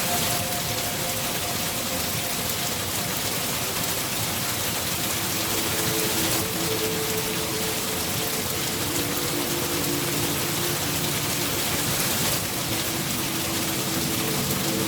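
Steady rain falling, an even hiss, with faint held tones underneath that change pitch every few seconds.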